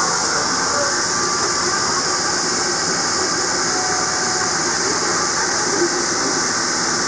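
Running noise of the Hartsfield–Jackson Plane Train, a rubber-tyred automated people mover, heard from inside the car as it travels through its tunnel: a steady rush with a strong high hiss over it.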